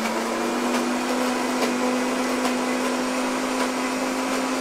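iTAZZO e-processor countertop blender running at high speed, blending a wet paste of dried chillies and spices with water. Its motor hum holds steady, creeping slightly higher in pitch.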